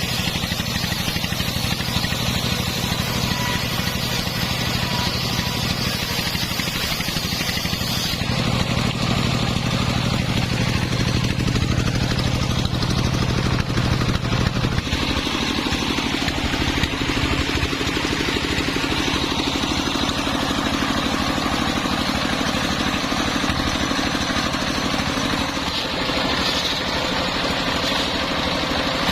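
Engine of a homemade circular sawmill running steadily while the blade saws coconut-palm wood. The engine note changes about eight seconds in and again about fifteen seconds in.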